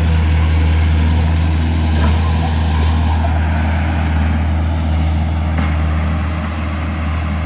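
Diesel engine of a compact earthmoving machine running steadily, a deep even hum.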